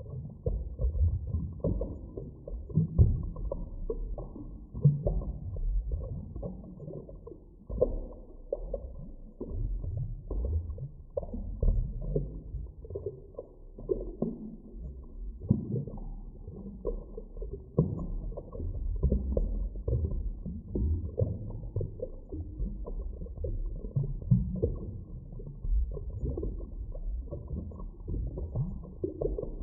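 Muffled underwater ambience: a continuous, uneven low rumble dotted with many short, soft knocks. All of it is deep and dull, with nothing bright or hissy on top.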